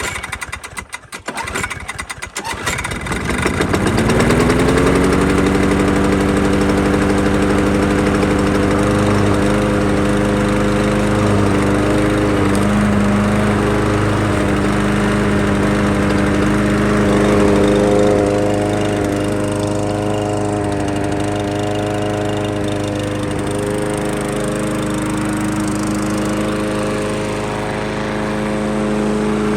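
Craftsman self-propelled lawn mower's small engine being pull-started, catching about three seconds in, climbing to speed and then running steadily, its freshly repaired choke spring letting it start.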